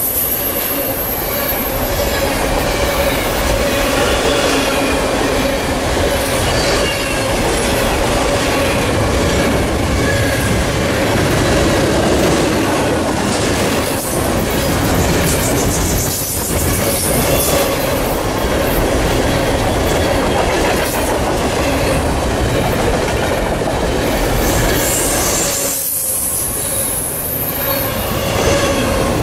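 Double-stack intermodal well cars of a freight train rolling past close by: a steady, loud rumble and rattle of wheels on rail with a clickety-clack over the joints. A thin high-pitched wheel squeal comes near the start and again near the end.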